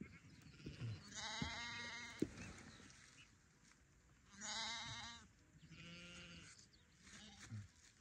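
Sheep bleating three times, each call about a second long with a quavering pitch, the last one fainter. A sharp click comes about two seconds in.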